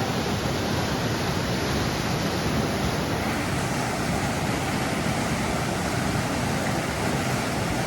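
Small mountain-stream waterfall pouring over rock ledges: a steady, even roar of falling water.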